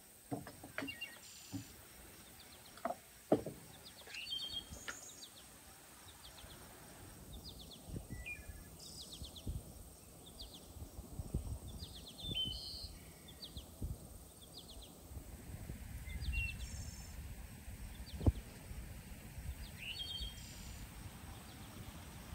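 Birds chirping with short rising calls and rapid high trills, over a steady outdoor background with insects. Scattered clicks and knocks of handling things break in, the sharpest a few seconds in and again late on, with low soft thuds in between.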